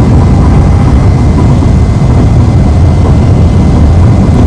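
Steady low rumble of a moving bus, heard from inside the passenger cabin: engine and road noise.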